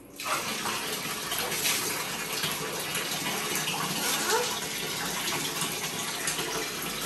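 Water running steadily into a bathtub from the tap, a continuous rushing that starts just after the beginning.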